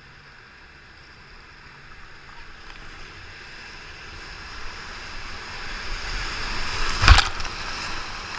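Rushing whitewater of a river rapid growing steadily louder as a whitewater kayak closes on the drop. A sharp loud splash comes near the end as the boat plunges into the foam, and the water rush stays loud after it.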